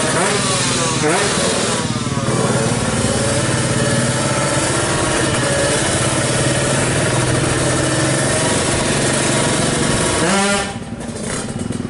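Tuned two-stroke Kawasaki Ninja 155 drag-bike engine revving hard. It gives a few rising and falling throttle sweeps, then runs steadily at high revs for about eight seconds. About ten and a half seconds in, the pitch falls sharply and the sound gets quieter.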